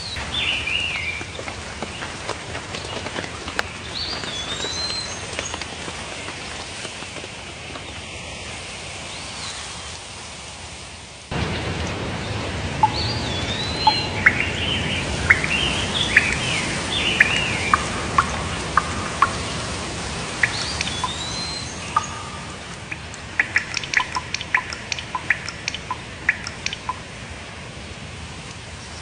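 Songbirds chirping and singing in short whistled phrases over a steady background hiss. The hiss jumps louder about a third of the way in, and near the end comes a run of quick, short chirps.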